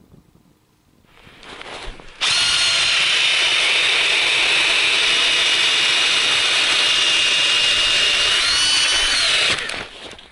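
Power drill turning an ice auger, boring a hole through river ice: a steady motor whine over the grinding of the cutters. It spins up about two seconds in, runs evenly, and stops near the end.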